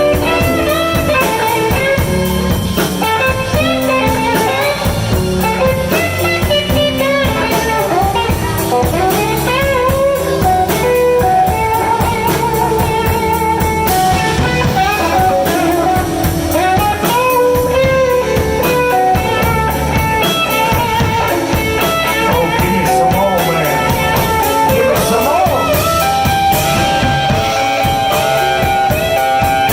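Live blues band playing, led by an electric guitar solo with bent, gliding notes over a drum kit.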